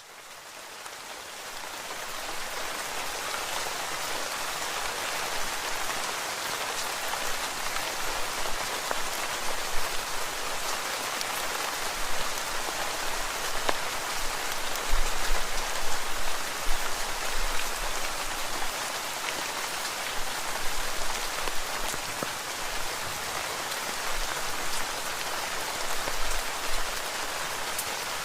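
Heavy rain falling steadily: a dense hiss of drops with many small drop clicks, fading in over the first couple of seconds.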